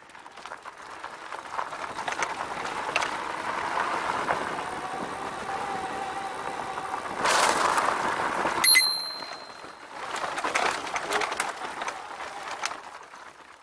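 Riding noise of a RadRover fat-tyre electric bike rolling fast over a dirt trail, heard from a camera mounted on the bike: a steady rushing noise that builds and eases. About two thirds of the way through comes one sharp metallic clink with a short ring.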